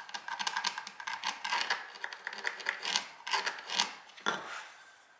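Pencil scratching over a board of oak in quick strokes while tracing a line, with a few sharper clicks, stopping about four and a half seconds in.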